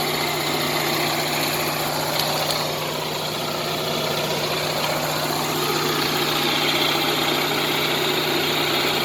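Onan 5.5 kW RV generator running steadily with a constant hum, its newly replaced starter and fuel pump having got it going.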